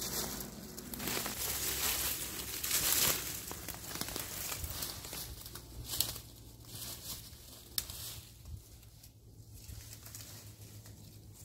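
Footsteps crunching through dry leaf litter and the rustle of dry beech leaves being brushed aside, loudest in the first few seconds and then fading as the steps move away, with a couple of sharp clicks partway through.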